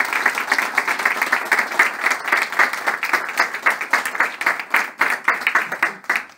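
Small seated audience applauding, dense clapping that thins out to a few separate claps and dies away near the end.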